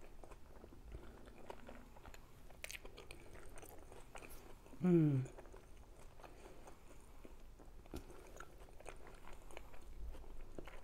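A person chewing battered deep-fried food with the mouth closed: faint, scattered small crunches and wet clicks. About five seconds in comes a short hum that falls in pitch.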